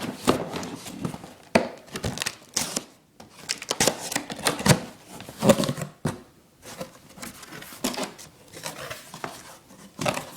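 Packaging from a new grill's box being handled: irregular crinkling and rustling of wrapping with occasional light knocks.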